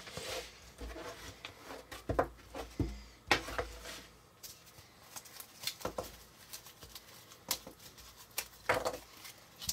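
Jigsaw puzzle pieces being lifted out of a plastic tray and handled on a tabletop: scattered light taps, clicks and rustles, with a louder clatter about three seconds in and again near the end.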